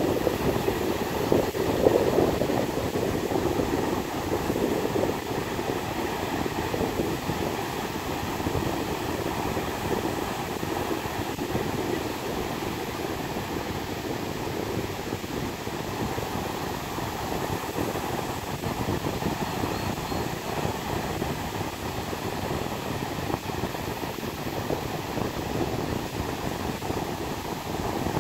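Ocean surf breaking and washing up a sandy beach: a steady rushing noise that swells and eases slightly, a little louder in the first couple of seconds.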